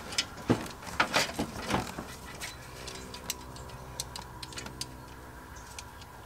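Hand tools working at a small 7 mm bolt under a truck's dashboard: a few sharper metallic knocks and clicks in the first two seconds, then softer scattered ticks over a faint steady hum.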